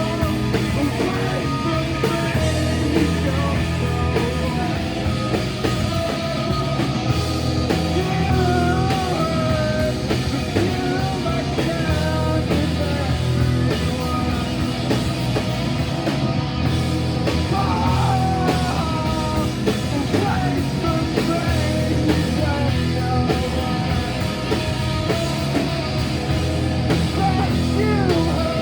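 Live rock band playing a song with electric guitars, bass and drums, with a guitar or vocal melody weaving over a steady bass.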